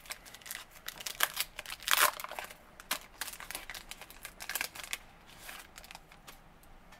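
Foil trading-card pack wrapper crinkling and tearing open, with cards handled in the fingers: a run of sharp crackles, loudest about two seconds in, that thins out after about five seconds.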